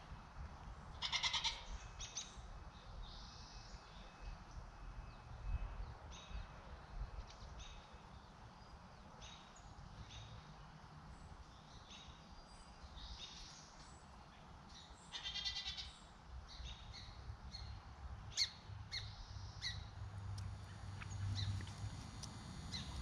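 Newborn Nubian-Boer cross goat kids bleating, two short high calls, one about a second in and one around the middle. Scattered faint chirps and clicks fall between them.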